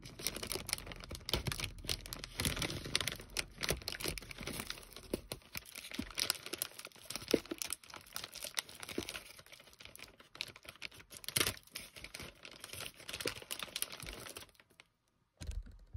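Plastic packaging of a mail-order parcel being torn open and crinkled as the items are pulled out: a dense run of crackles and rustles that stops about a second and a half before the end.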